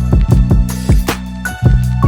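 Background music with a steady beat, bass and sustained melodic notes.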